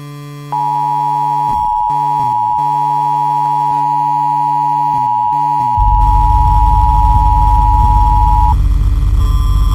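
Television emergency-broadcast test tone: a single steady high-pitched beep, held for about eight seconds, over a low electronic hum with brief glitchy dropouts. A loud low buzz comes in about halfway through and carries on after the beep cuts off.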